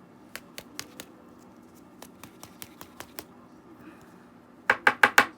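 Trading cards being handled, with a scattered run of light clicks as cards are flipped through and set down. Near the end comes a quick burst of about five louder knocks.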